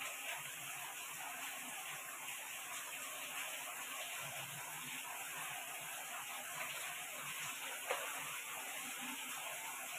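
Steady background hiss, with quiet handling as a small steel bowl's rim is pressed into rolled dough to cut circles, and one sharp click about eight seconds in.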